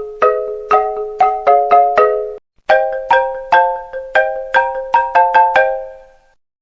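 iPhone ringtone melody in a marimba-like struck tone: two quick phrases of chimed notes and chords with a brief break between them. The last notes ring out and it stops just after six seconds in.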